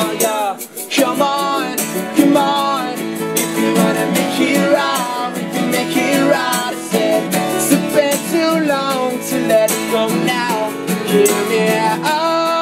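Live unplugged band music: strummed acoustic guitar with voices singing over it.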